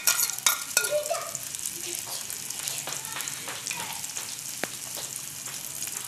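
Beaten eggs frying in hot oil in a pan, a steady sizzle, with a metal spoon clicking and scraping against the pan, mostly in the first second.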